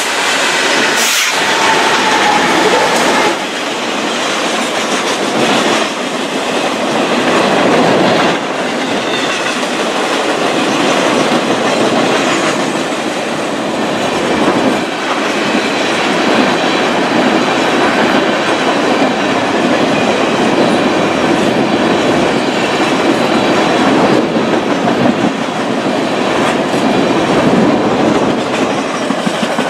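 BNSF work train passing close: its GE diesel locomotives, then a string of freight cars loaded with rail, wheels running over the track in a steady, loud noise.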